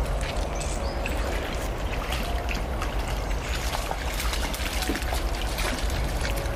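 Running water trickling and splashing, like a small stream, over a steady low rumble.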